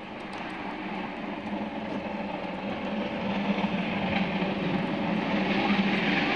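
Deutsche Reichsbahn three-cylinder express steam locomotive 03 1010 running through a station at speed with its train. Its rumble grows steadily louder as it approaches.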